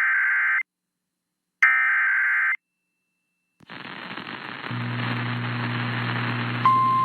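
Emergency Alert System SAME header: two harsh digital data bursts about a second long, a second apart. Then radio static with a low hum, and near the end a single steady, high weather-alert attention tone begins.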